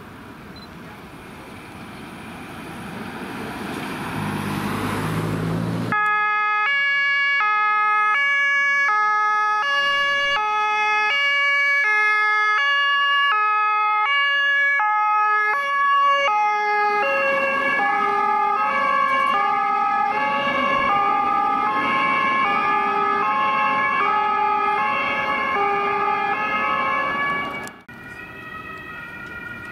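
German two-tone emergency vehicle sirens (Martinshorn), switching between a high and a low note about every half second. A second siren at different pitches joins about halfway through, out of step with the first. Both cut off abruptly near the end. Before the sirens, a vehicle's engine and road noise builds up for several seconds.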